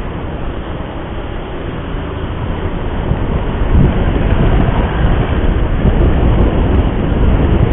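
Steady road and wind rumble of a moving vehicle in traffic, growing louder about halfway through.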